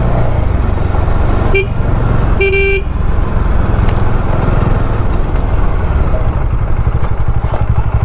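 Motorcycle riding along with a steady engine and road rumble, and a horn tooting twice: a short toot about a second and a half in and a longer one about a second later.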